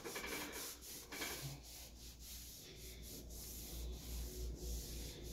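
Cloth rag rubbing over a wooden banister, wiping excess wood putty off a freshly filled scratch. It is faint, in quick repeated back-and-forth strokes.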